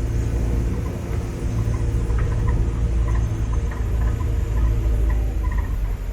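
Car driving, a steady low engine and road rumble with faint small ticks over it.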